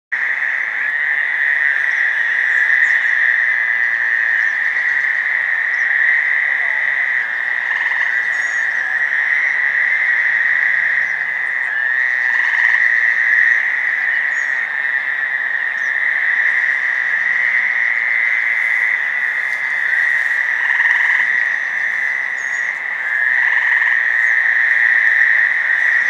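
Chorus of about ten Fowler's toads calling together, their buzzing calls overlapping into a steady high drone. A few times a single gray tree frog gives a short, lower trill.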